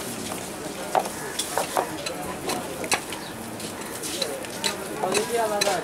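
Busy lane ambience: a steady hiss of background noise with frequent small clicks and knocks and faint distant voices.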